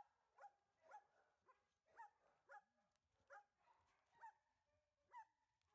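A dog barking faintly in a string of short, high yaps, about ten of them at roughly two a second.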